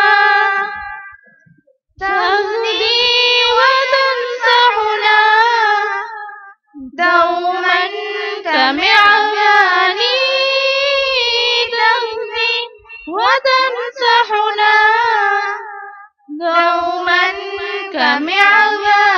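A high voice sings an Arabic nasheed unaccompanied, in long drawn-out, ornamented phrases with short pauses between them.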